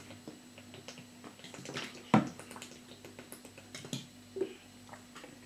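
Small clicks and knocks of a spoon and tableware during a meal, with a plastic water bottle being drunk from, over a faint steady hum; one sharper click about two seconds in.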